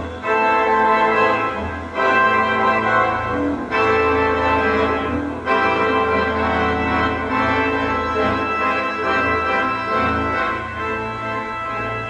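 Organ music: sustained chords that change every couple of seconds.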